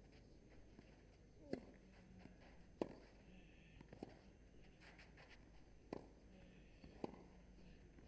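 Tennis ball struck back and forth by racquets in a baseline rally: five sharp hits, roughly a second to two seconds apart, over a quiet, hushed crowd.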